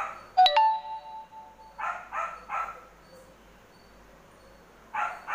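A dog barking in quick runs of three or four barks. About half a second in, a sharp clink followed by a brief ringing tone, the loudest sound here.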